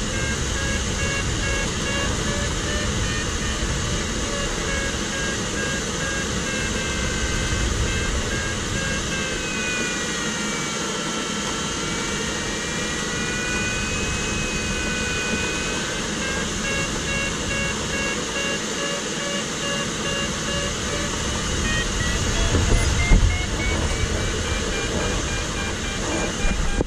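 Steady rush of air over the sailplane's cockpit and canopy in flight, with the glider's audio variometer sounding over it. The variometer beeps a rapid series of high tones, changes about nine seconds in to an unbroken tone that dips and then rises in pitch, and goes back to beeping at about sixteen seconds. By the usual convention, beeping signals climbing in lift and the steady tone signals sink.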